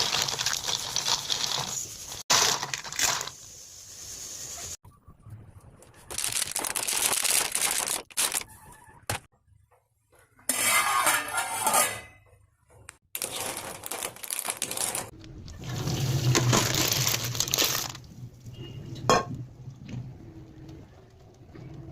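Clam shells and kitchenware clinking and clattering, in a run of short clips that cut in and out, with a sharp click about 19 seconds in.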